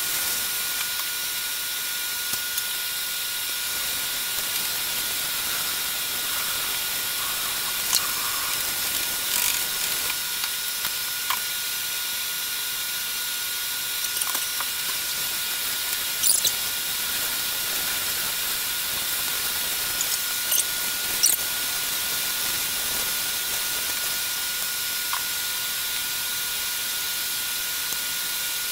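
Hand-held shower running steadily, a hiss of water spraying in a stall shower, with a few light knocks and clicks.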